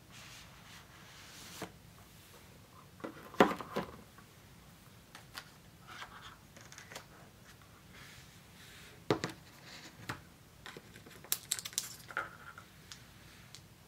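Cardboard Apple Pencil box being handled and opened: the inner box slides out of its sleeve with soft scraping, and a scatter of sharp taps and knocks comes as the pieces are set down on the desk, the loudest about three and a half seconds in, then again near nine seconds and around eleven to twelve seconds.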